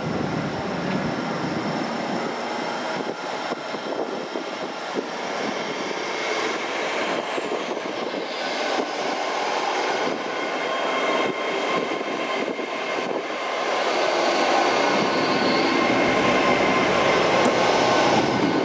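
GWR Class 800 Hitachi intercity train running along the platform: a steady rumbling run with whining tones from its traction equipment, getting louder in the last few seconds. A high tone slides downward about seven seconds in.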